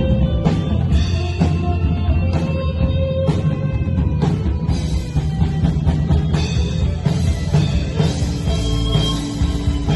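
Rock music with drums and bass: a steady beat of drum hits, several a second, under sustained pitched instrument notes.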